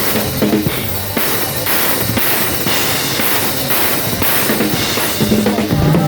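Loud music with a driving drum kit, kick and snare hitting in a steady beat.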